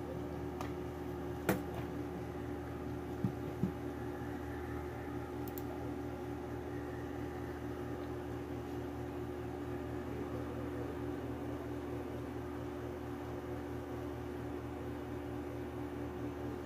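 Steady low hum of a running machine, with a few light clicks in the first four seconds.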